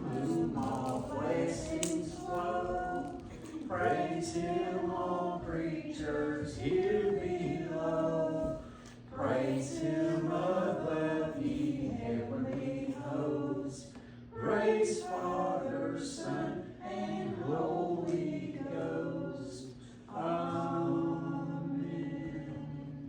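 A group of voices singing a hymn without accompaniment, phrase after phrase with short breaths between.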